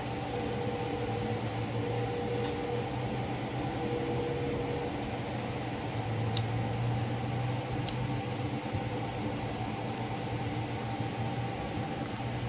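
A steady mechanical hum, like a fan running, with two sharp clicks about a second and a half apart midway through.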